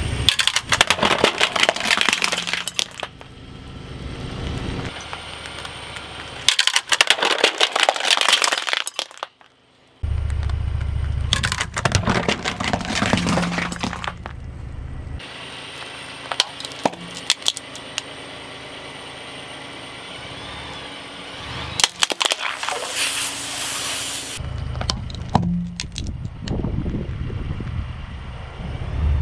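A car tire rolls over and crushes a glass bowl full of blue liquid and glittery ball ornaments. Glass cracks and shatters in several dense crunching bursts, repeated four times, with the low rumble of the car between them.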